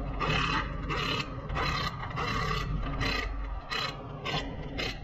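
Repeated rasping, scraping strokes from a hand tool being worked by hand, about nine strokes at roughly two a second, over a low steady hum that stops about three and a half seconds in.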